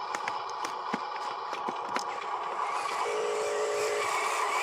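Steady electric whine of the motors and gears of a Huina radio-controlled excavator and dump truck, with scattered sharp clicks in the first two seconds. A second, lower whine joins about three seconds in.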